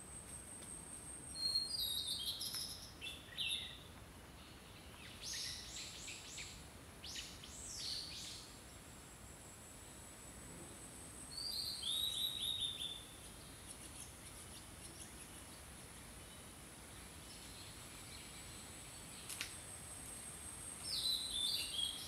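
Wild songbirds singing in a forest: short phrases of high chirps every few seconds, several of them falling runs of notes. A thin, steady, very high-pitched tone runs underneath.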